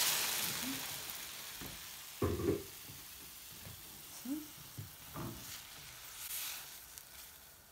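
Tomato sauce sizzling as it hits hot fried rice in a stainless steel pan, the sizzle dying down over the first couple of seconds. A spatula then stirs and knocks against the pan a few times while a softer sizzle goes on.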